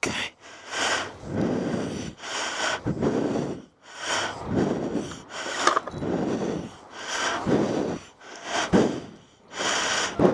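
A person breathing hard close to the microphone, one loud breath about every second.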